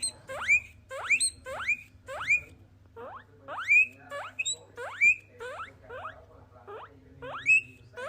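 Guinea pig wheeking: a run of short, loud whistles, each rising sharply in pitch, about two a second.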